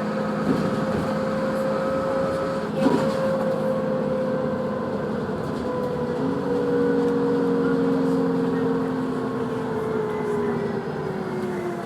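Vehicle running with a steady hum and whining tones. One of them slowly falls in pitch in the second half, and a lower tone joins about halfway through. A single sharp knock comes about three seconds in.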